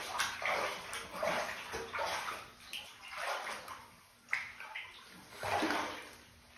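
Bathwater sloshing and splashing in uneven swells as dogs shift about in a shallow bath, with a short knock about four seconds in.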